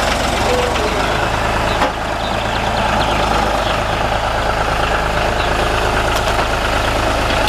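John Deere 5055E tractor's diesel engine running steadily while its front-loader grapple works a log, with a brief knock a little under two seconds in.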